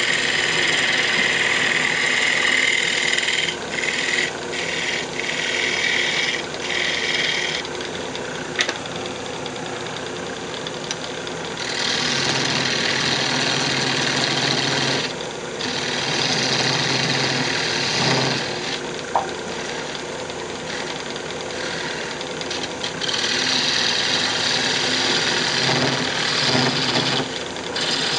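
Wood lathe running with a steady low hum while a hand-held turning tool cuts a spinning redwood handle blank. The cutting is a loud hiss of shavings that comes and goes several times, in stretches of a few seconds, as the tool is pressed into the wood and eased off.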